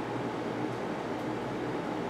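Steady low mechanical hum with an even hiss.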